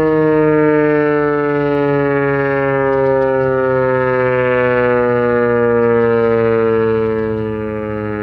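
Outdoor warning siren sounding one loud tone rich in overtones, its pitch slowly and steadily falling.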